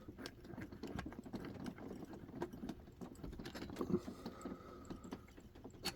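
Faint, irregular metallic clicking and ticking of a lock pick working the pins of a pin tumbler lock held under a tension tool.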